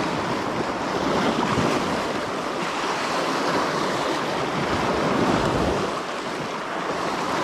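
Sea waves washing on the shore in a steady rush of surf, with wind buffeting the microphone.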